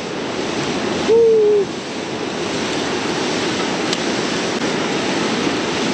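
Ocean surf washing and breaking against rocks, a steady rush. About a second in there is a short hooting 'ooh' call.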